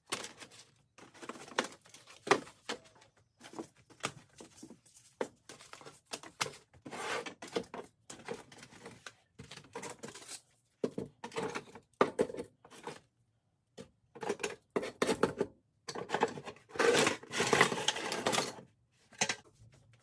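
Packs of sandpaper, sanding discs and grinding wheels being lifted out of a plastic bucket and set down on a wooden workbench. The paper packaging rustles irregularly and the discs clack lightly, with a longer stretch of rustling near the end.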